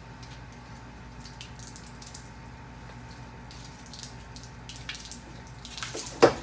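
Water trickling and dripping from a water-heater drain hose, with scattered small drips and a single sharp clack about six seconds in.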